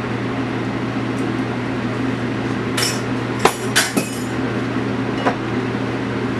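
A metal utensil clinking against a cooking pot a few sharp times, clustered about three to four seconds in with one more later, while flour goes into the melted butter and onions for a roux. A steady hum runs underneath.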